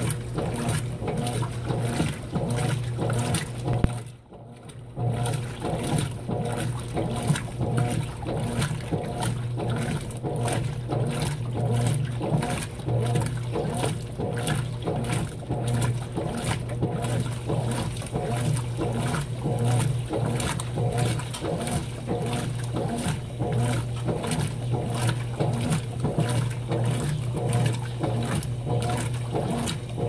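Consul 16 kg top-load washing machine agitating a heavy load of rugs: a steady motor hum under water sloshing and swishing in a quick, regular rhythm. The sound briefly drops out about four seconds in.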